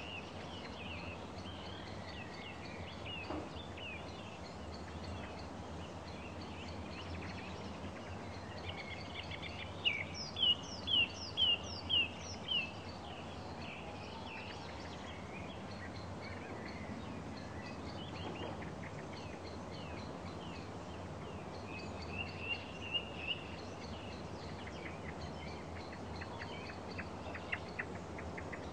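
Songbirds singing and calling over a steady low rumble. About ten seconds in, one bird gives a loud run of about six sharp, falling notes, and a short trill comes later.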